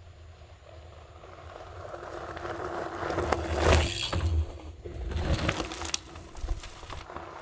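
Gravel bike riding past on a dirt trail: tyres rolling over dirt and leaves, getting louder to a close pass about four seconds in, then fading as it rides away.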